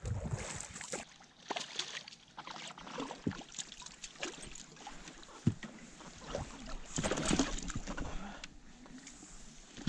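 Water splashing and sloshing beside an inflatable boat as a sockeye salmon, foul-hooked in the back, thrashes at the surface. Short knocks and rustling come from handling in the boat, with a louder stretch of splashing about seven seconds in.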